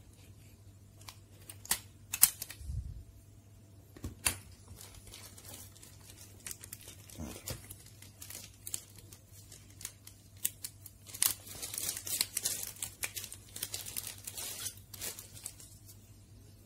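Sharp snaps of a spring-loaded automatic center punch firing against the metal E27 lamp base, staking it to the LED bulb's plastic housing, about two seconds in, with another click a couple of seconds later. Later comes a few seconds of crinkly rustling and clicking.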